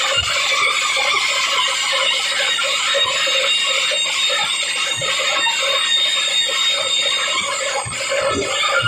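Loud band music from a loudspeaker rig, harsh and distorted, with a fast repeating pattern and a few deep drum thumps.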